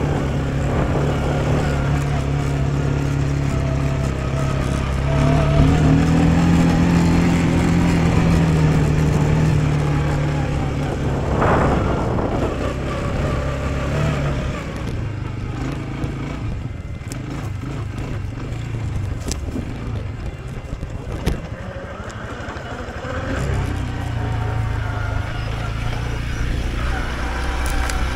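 Loncin XWolf 300 ATV engine running while riding: its note rises about six seconds in, then eases off, and it runs quieter for several seconds with a few sharp knocks before the engine picks up again near the end.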